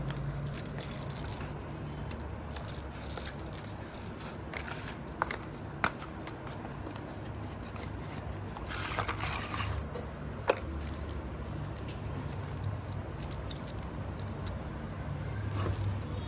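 Slate pencils being handled, the hard sticks clicking against each other now and then, with a short rustle of packaging about nine seconds in, over a low steady hum.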